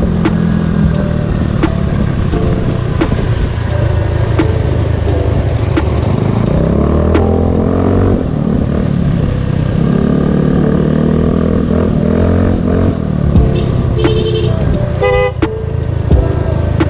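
Small automatic scooter engine running on the move, its pitch rising and falling as the throttle is opened and eased off. A vehicle horn toots briefly near the end.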